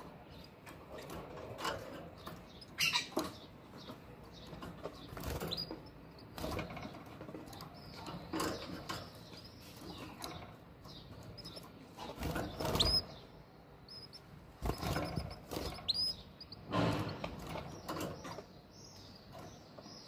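Canary moving about at its nest in a wire cage: irregular fluttering wings and rustling in the nest, with a few short high chirps.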